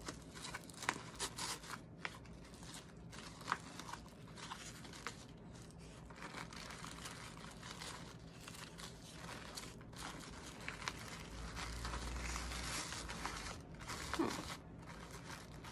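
Tissue paper and a fabric ribbon rustling and crinkling as hands work a bow, with scattered small crackles. The rustling grows steadier and louder about eleven seconds in.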